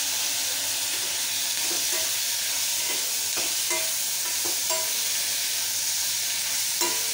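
Vegetables sizzling and frying in oil in a stainless steel kadai while a metal spatula stirs them, scraping and clinking against the pan every half second or so.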